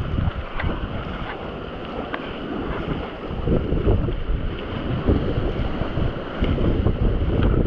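Wind buffeting the microphone over open sea with waves, a gusty, uneven rumble, with a few faint short ticks scattered through.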